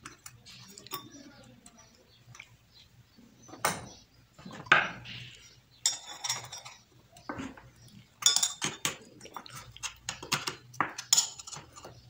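Irregular metallic clicks, clinks and short scrapes from small fan-motor parts being handled and pressed together: a ball bearing and its spring-steel pressure spider being worked into the motor's bearing housing.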